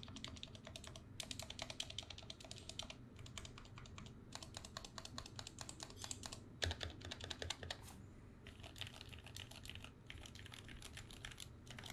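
Typing test on a Gamakay K61 mechanical keyboard with Gateron black switches and PBT keycaps: fast runs of key clacks broken by short pauses, with one heavier knock about two-thirds of the way through.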